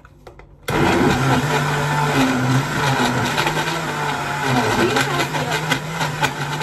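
Kenwood countertop blender switched on about a second in and running steadily, blending a thick ice-cream milkshake.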